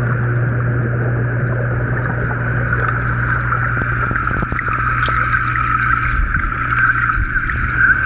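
Underwater sound of a koi pond: the muffled rush of rising air bubbles with small scattered ticks, over a steady low hum.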